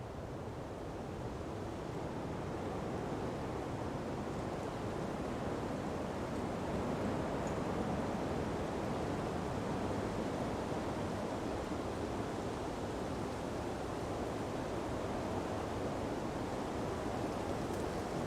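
Sea breeze blowing through palm trees with ocean surf, a steady rushing that builds a little over the first few seconds.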